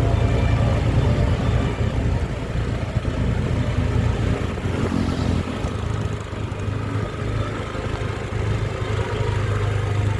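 A bus engine and traffic run with a steady low rumble. No horn tune sounds.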